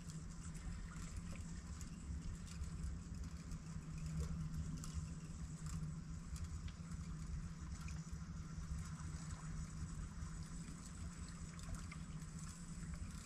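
Steady low outdoor rumble with a faint hiss and scattered small ticks.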